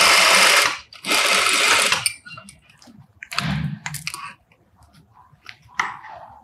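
Industrial sewing machine stitching a seam in two short runs, then stopping. Fabric is handled, and near the end scissors snip the threads.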